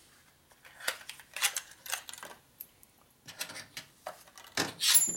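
Small clicks and rattles of new spark plugs and their packaging being handled on a metal workbench, ending in a louder metallic clatter that rings briefly.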